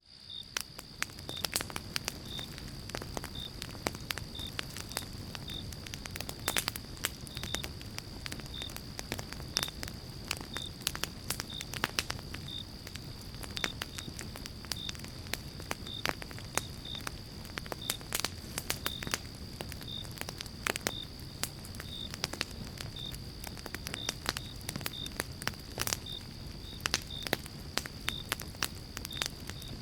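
Fire burning in a fireplace, with many sharp, irregular crackles and snaps over a steady low rumble of the flames.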